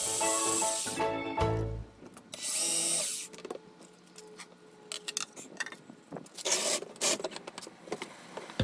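Background music for about the first two seconds, then a short loud burst of a power tool working wood at about two and a half seconds. After that come scattered light clicks and knocks as wood and tools are handled.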